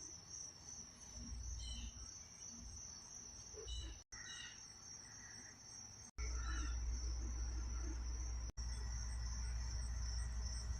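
Insects chirring steadily on one high pitch, with a few short chirps in the first half. A steady low rumble comes in much louder about six seconds in, and the sound cuts out for an instant three times.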